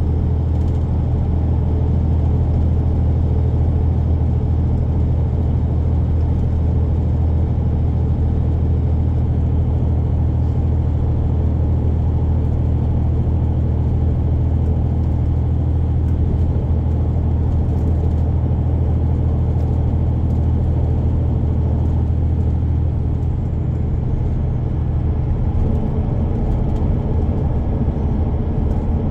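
VDL Bova Futura coach at cruising speed, heard from inside the passenger cabin: a steady, deep engine drone mixed with road and tyre noise. The level eases slightly near the end.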